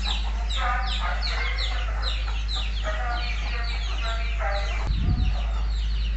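Chickens clucking, with small birds chirping rapidly over them. A steady low hum runs underneath, and there is a brief low thump about five seconds in.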